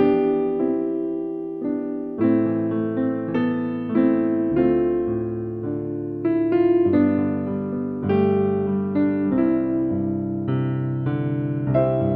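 Solo piano music, a slow melody of single struck notes over held chords, each note fading after it is struck.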